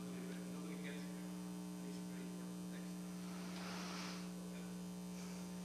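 Steady electrical mains hum in the microphone and sound system, with a brief soft rustle about four seconds in.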